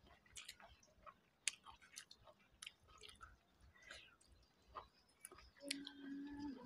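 Faint mouth sounds of eating by hand: chewing and lip smacks with scattered soft clicks, one sharper click about a second and a half in. Near the end a short steady low hum.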